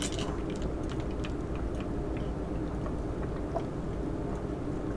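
Quiet sipping of a drink through a straw, with a few faint swallowing clicks, over a steady low background hum.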